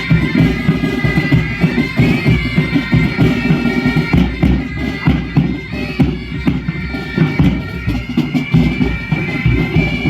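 Bagpipe music: the pipes play a melody over their steady drones.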